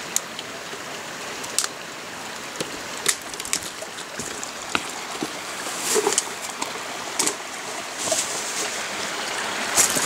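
Creek water running over rocks, a steady rush, with scattered sharp clicks and knocks throughout.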